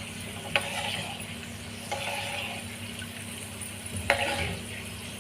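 A spoon stirring garlic, fenugreek and ajwain seeds frying in mustard oil in a small metal bowl: three short scraping clinks, one every second and a half to two seconds, over a steady low hum.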